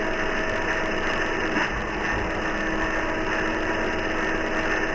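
Circular saw running with no load, its blade spinning freely: a steady motor hum and whine over an even rush of noise, with a faint tick about one and a half seconds in.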